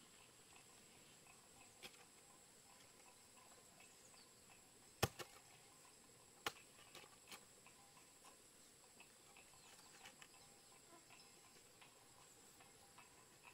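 Mostly quiet, with a handful of sharp knocks from a hoe blade striking stony soil, the loudest about five seconds in.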